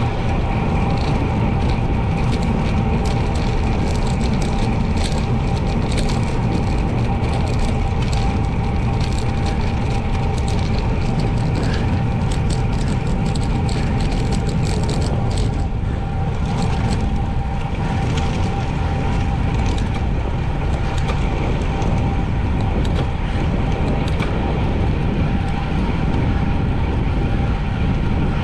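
Wind rush and road noise from a bicycle ridden at speed, picked up by a camera mounted on the bike, with a steady hum and scattered light ticks over a heavy low rumble.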